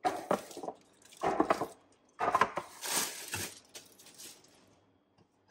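Hands handling clear acrylic organizer bins and plastic food bags on a countertop: a few short bursts of plastic clatter and crinkling in the first three and a half seconds, then quieter handling.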